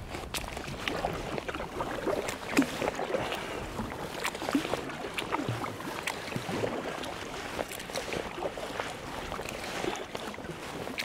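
Kayak paddle strokes in calm river water: the blades dipping in and splashing, with many small, irregular drips and splashes.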